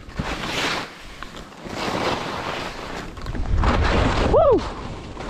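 Skis scraping and hissing over packed, chopped-up snow in a series of turns, one surge per turn. Wind rumbles on the microphone as speed picks up in the second half, and a short rising-and-falling tone sounds near the end.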